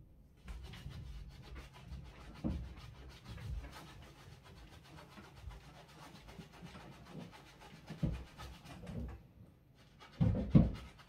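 Soft bristle brush scrubbing the fabric liner inside a Yeezy Boost 350 sneaker with soapy cleaner, a fast, even run of short bristle strokes. The scrubbing pauses near the end, where a few dull knocks sound.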